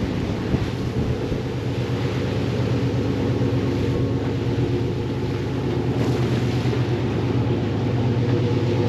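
A fishing boat's engine running steadily while under way, over the rushing wash of the wake and rough sea.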